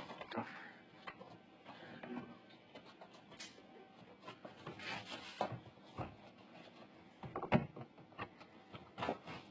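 Plastic door trim panel of a third-generation Toyota 4Runner being handled and worked onto the door, with irregular rubbing, light knocks and clicks; the sharpest knock comes about seven and a half seconds in.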